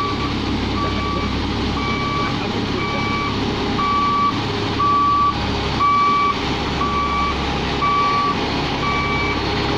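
L&T 990 HF tandem road roller's reverse alarm beeping steadily, about once a second, over the roller's running diesel engine as it travels in reverse.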